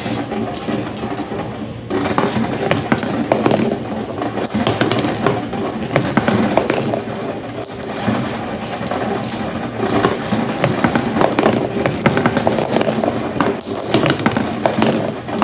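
Glass marbles rolling down a marble run, with a steady rolling rumble and many quick clicks as they knock against each other and the track, getting busier about two seconds in.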